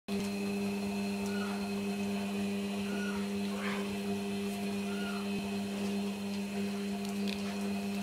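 Beko front-loading washing machine running a wash cycle, its drum turning: a steady, even motor hum with a fainter high whine above it.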